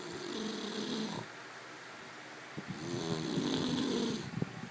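A sleeper snoring: two long snores about two seconds apart, each with a fluttering, vibrating sound and a breathy hiss, and a few small pops near the end.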